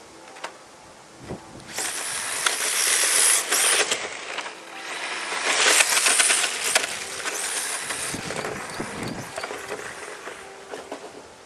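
Radio-controlled HPI Sprint 2 drift car with a brushless motor, its drift tyres hissing as they slide across asphalt; it sweeps close twice, about two and six seconds in, then fades away.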